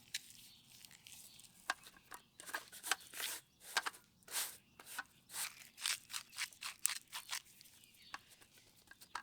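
Hands salting and seasoning a raw ribeye steak on a disposable plastic cutting board: a faint series of short, irregular rustles and scrapes.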